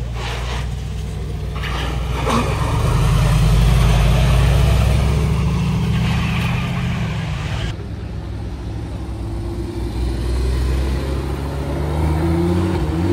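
A car engine running and accelerating, its note rising in pitch for a couple of seconds, then easing off, and rising again near the end.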